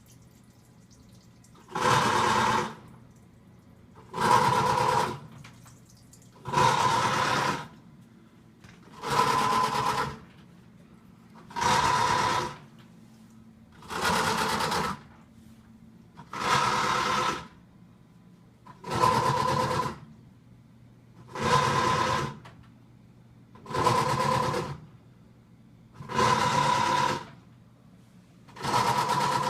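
Brand-new Samsung WA45H7200AP top-load washer making a blender-like grinding noise from its base in regular bursts, each about a second long and coming every two and a half seconds, as the motor tries to turn the drum. It is a fault that keeps the machine from washing.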